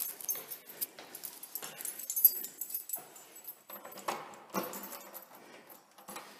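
A bunch of keys jangling, with irregular clicks and knocks from handling.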